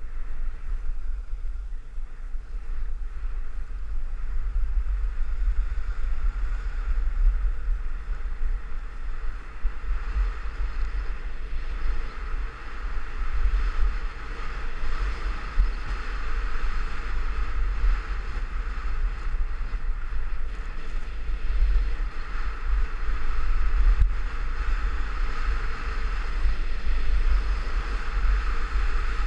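Wind rumbling hard on the microphone while moving fast downhill, with a steady hiss of sliding over packed snow that grows louder after about twelve seconds.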